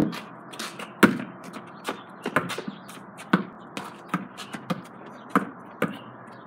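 Basketball bouncing on hard ground: about ten sharp thuds at uneven intervals.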